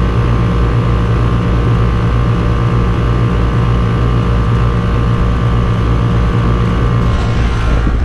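Outdoor condensing unit of a fixed-orifice R410A central air conditioner running, close up: a loud, steady hum from the compressor and condenser fan.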